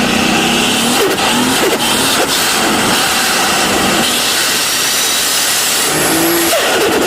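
Turbocharged car engine revving, its pitch gliding up and down, with a high rising turbo whistle in the later seconds and an abrupt change in the sound about six and a half seconds in.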